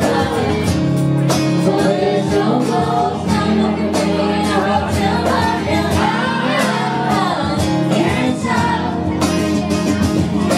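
Live acoustic guitar strummed with people singing along.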